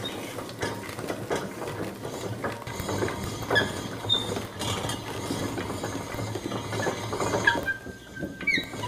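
Hand-cranked apple mill being turned, its blades and rollers crushing whole apples into pulp for cider: an irregular run of ratcheting clicks and crunches, with a few short squeaks.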